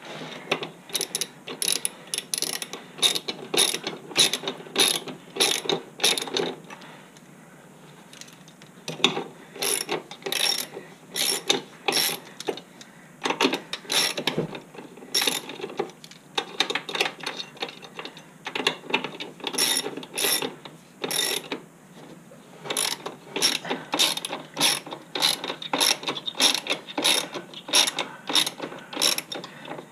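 Hand socket ratchet clicking as it turns bolts under an ATV, in runs of quick strokes, about two a second, with a couple of short pauses.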